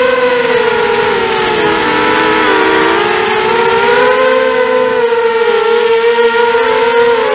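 Brushless motors and 5x3 props of a ZMR250 FPV racing quadcopter whining in flight, heard from the onboard camera. Several tones dip in pitch and drift apart about two seconds in as the throttle eases, then climb back, over a steady rush of air.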